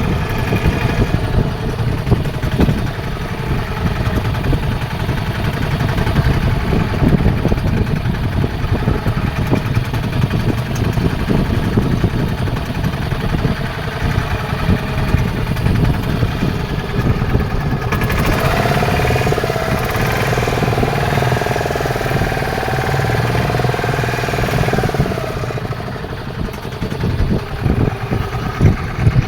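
Fishing boat's engine running steadily with a low rumble. About eighteen seconds in, a hissing layer with a wavering higher tone joins it for around seven seconds.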